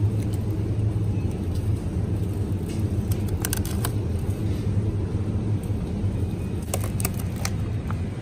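Steady low rumble of supermarket background noise, with a few short clicks and crackles from produce packs being handled, around the middle and about three-quarters of the way through.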